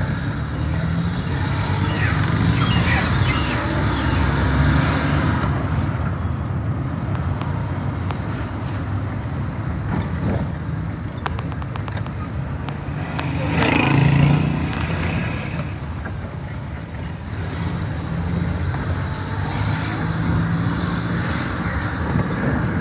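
Vehicle driving along a town road in traffic: steady engine and road rumble. It swells louder about fourteen seconds in.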